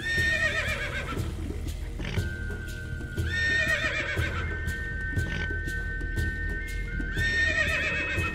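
A horse whinnying three times, each a shaky call of about a second: at the start, about three seconds in and about seven seconds in. Background music with long held tones runs beneath.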